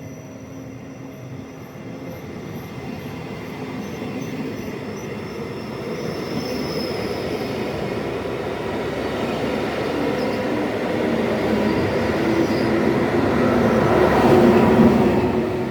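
ÖBB class 1144 electric locomotive and its push-pull train running by, growing steadily louder and loudest about fourteen seconds in, then falling away.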